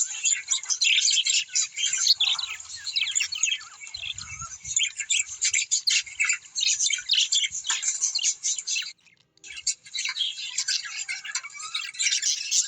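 A group of small parrots chattering, with a dense mix of rapid high chirps and squawks. There is a brief break about nine seconds in.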